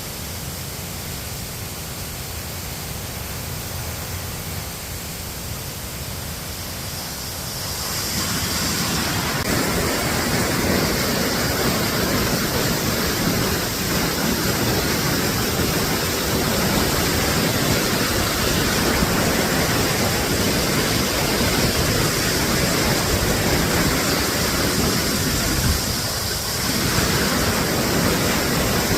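Waterfall: a steady rush of falling water, which grows louder about a quarter of the way in and dips briefly near the end.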